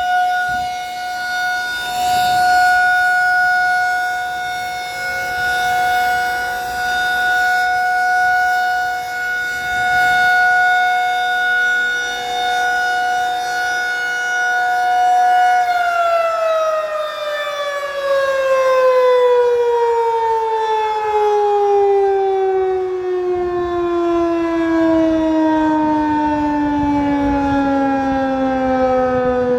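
Outdoor tornado warning siren sounding its one-minute test alert: a steady tone, then about sixteen seconds in it winds down, its pitch falling steadily.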